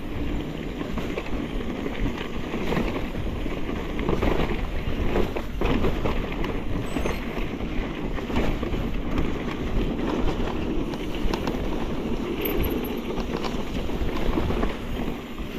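Electric mountain bike rolling over a rocky trail: continuous tyre rumble with frequent rattling knocks, and wind buffeting the microphone.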